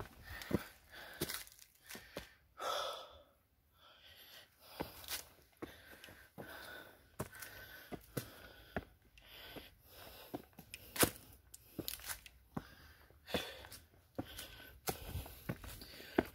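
Footsteps on stone steps, sharp irregular knocks about one or two a second, with the climber's heavy breathing from the steep ascent.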